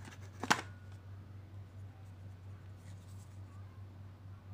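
A sharp plastic click as the 70mai Smart Dash Cam 1S is pulled from its box insert, then faint rustling as it is handled, over a steady low hum.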